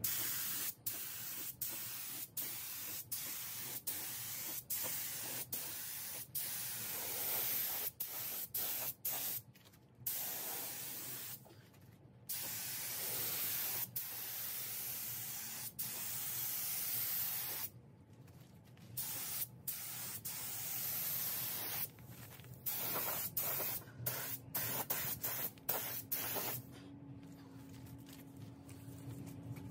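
Compressed-air gravity-feed spray gun hissing as it sprays epoxy primer onto a car fender. It comes in passes, broken by many short stops as the trigger is released, with a few longer pauses.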